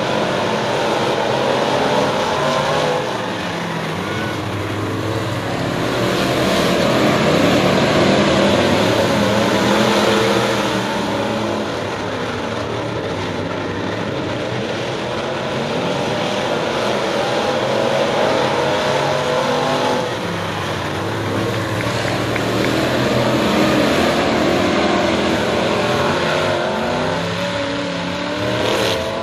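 A field of crate-engine dirt-track modified race cars racing, several engines at once rising and falling in pitch as they accelerate and lift through the turns. The sound swells as the pack comes around past the listener and eases as it moves away down the track.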